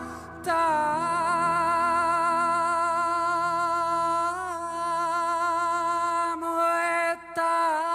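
Background music: a voice singing long held notes with vibrato, breaking off briefly about half a second in and again near the end.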